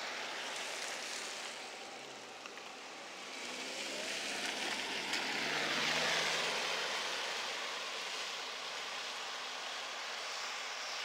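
A motor vehicle passing on a wet road: tyre hiss and engine hum swell to a peak about six seconds in and then fade back to a steady hiss.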